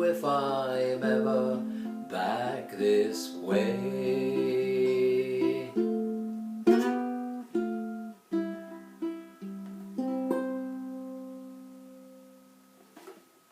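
A voice sings out the end of the last line over a strummed acoustic string instrument, then a few separate closing strums, and a final chord about ten seconds in that rings and slowly fades away.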